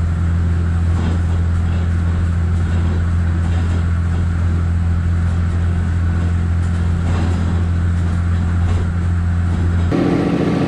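1984 cabover Peterbilt semi truck under way at highway speed on a wet road: a steady low diesel engine drone with road and rain noise over it. Near the end the sound changes abruptly.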